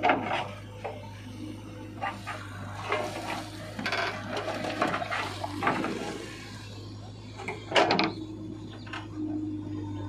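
JCB 3DX backhoe loader's diesel engine running steadily as its bucket scrapes and grinds through dry soil and clods, with scattered knocks and clatter of the steel bucket and arm. A loud clunk comes about eight seconds in.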